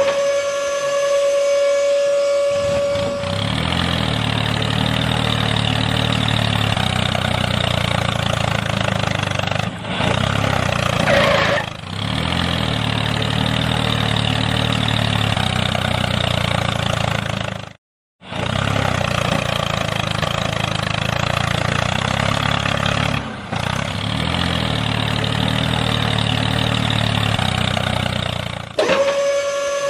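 A small motor running steadily under load. A held tone sounds over the first few seconds and again near the end, and everything cuts out briefly just past the middle.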